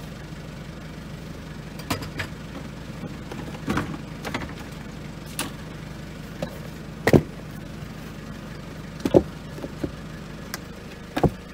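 Knocks and clunks of handling at a campervan's fold-out shelf: a portable gas stove is lifted off and a hinged plastic panel is moved. There are about ten separate knocks, the loudest about seven seconds in, over a steady low hum.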